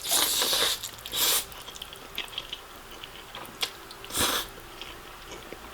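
Close-miked mouth sounds of eating saucy noodles: two hissy slurps at the start, a third about four seconds in, with soft chewing clicks between.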